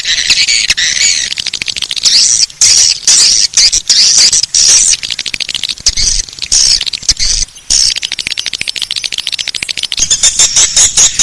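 Swiftlet call recording, the lure sound played to attract swiftlets to a nesting house: dense high-pitched chirping and twittering with rapid clicks. About ten seconds in it changes to a regular pulse of roughly three chirps a second.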